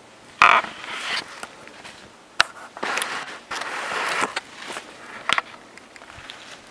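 Footsteps through forest undergrowth: brush and dry twigs rustling and crunching underfoot in irregular bursts, with a few sharp snaps of breaking sticks.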